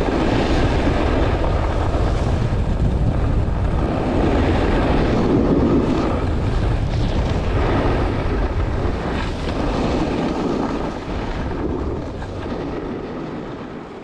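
A snowboard sliding and scraping over groomed snow, with wind buffeting the microphone as a heavy low rumble. It eases off as the rider slows near the end, then fades out.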